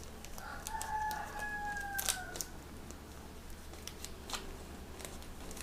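A rooster crowing once in the background, a single drawn-out call of about two seconds that falls slightly in pitch at its end. Small clicks and rustles of things being handled come and go around it.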